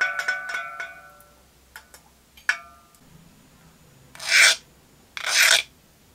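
Metal clinking and ringing in quick taps that die away within the first second, then two single clicks. Near the end, two rasping strokes of a flat hand file across a small heat-treated steel part, a file test of hardness that the part passes.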